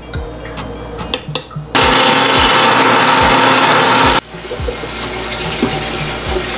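Electric mixer grinder blending a sautéed onion, tomato and dried red chilli mixture into chutney paste. A few clicks come first; the motor starts suddenly about two seconds in, runs for about two and a half seconds and cuts off abruptly.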